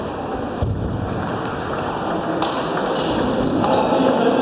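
Table-tennis balls clicking sharply off bats and tables in a rally, with more ball clicks from other tables over a steady background hubbub; a low thud about a second in.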